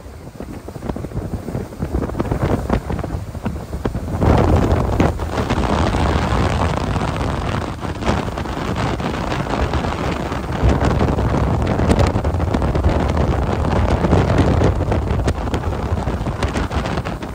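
Motorboat running at speed: wind buffeting the microphone over the engine and the rush of the wake. It grows louder about four seconds in.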